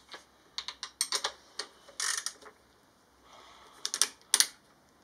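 Socket ratchet clicking in short, uneven runs of sharp clicks while undoing a bolt on a motorcycle's exhaust link pipe, with a brief metallic rasp about two seconds in.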